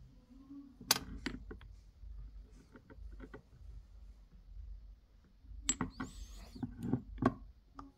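Scattered light clinks and knocks of dishes and cutlery being handled. The sharpest comes about a second in, and a quick run of clinks follows near the end.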